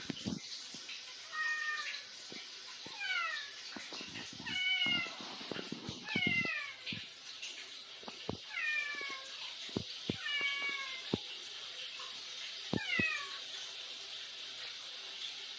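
Domestic cat meowing back in a run of about seven short meows, most falling in pitch, one every couple of seconds, like grumbling chatter. Light clicks between the meows and a steady hiss underneath.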